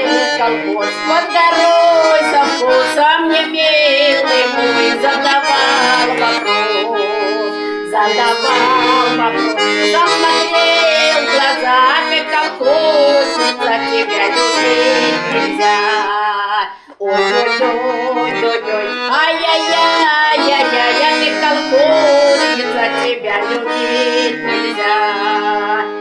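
Accordion playing a folk song, with a woman singing along. The music stops for a moment about two-thirds of the way through.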